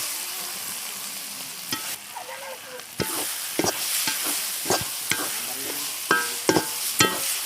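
Onion-tomato masala sizzling as it fries in a pan, with turmeric powder being stirred in. From about three seconds in, a spatula stirs and knocks against the pan again and again, some knocks ringing briefly.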